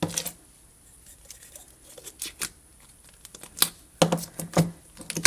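A plastic slime container being opened and handled: scattered sharp clicks and crackles, several in a quick cluster near the end.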